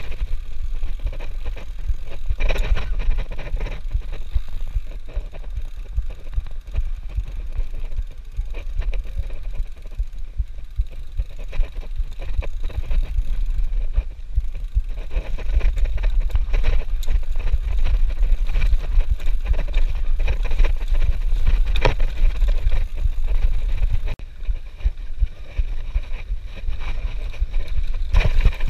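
Mountain bike riding fast down a dirt singletrack, heard from a camera on the rider: a steady low rumble of wind on the microphone, with the bike rattling and knocking over bumps the whole way.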